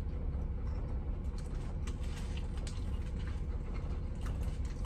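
A person chewing food with the mouth closed, faint small clicks and smacks, over a steady low hum in the vehicle cab.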